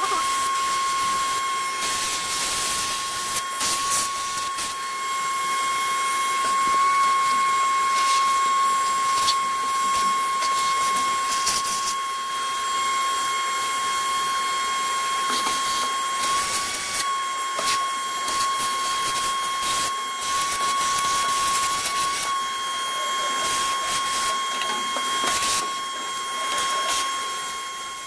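Wet/dry shop vacuum running steadily with a high, even whine, sucking dust out of a gas furnace around the inducer motor and burners. Scattered short knocks come from the nozzle bumping and scraping the metal.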